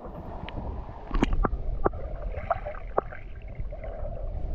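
Stream water gurgling and splashing, with a few short sharp sounds among it over a low rumble.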